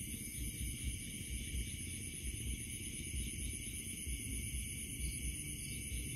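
Steady high-pitched chorus of night insects, with irregular low thuds underneath.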